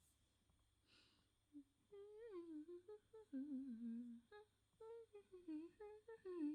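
A woman humming a slow, wandering melody quietly, close to the microphone. The humming begins about two seconds in, after a short quiet stretch.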